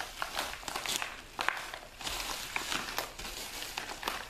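Crinkling and rustling of padded mailer envelopes being handled and pulled open by hand, in irregular bursts.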